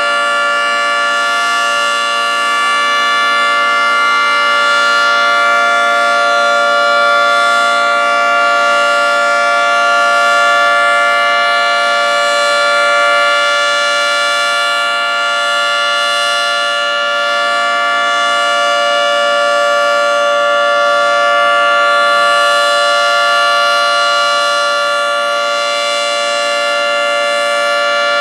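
Federal Signal 3T22A three-tone rotating tornado siren sounding a steady Alert tone: a loud chord held at one pitch, swelling and easing gently in loudness. On this test it gave the steady Alert instead of its expected hi-lo signal.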